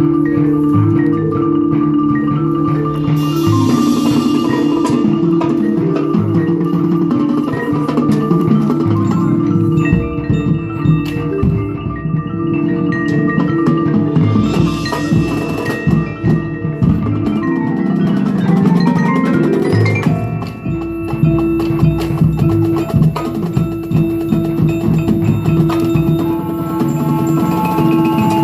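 High school marching band playing: held brass chords over mallet percussion (marimba, xylophone) and drums, with two loud crashes. A long chord is held through the last part.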